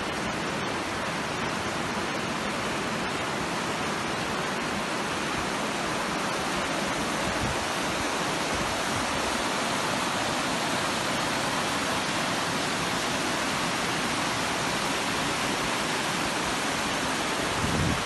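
Fast mountain river rushing through whitewater rapids over rocks: a steady, unbroken roar of water.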